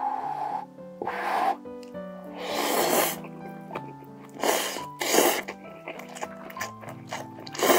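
A person slurping instant ramen noodles, about six short noisy slurps, the longest about two to three seconds in, over steady background music.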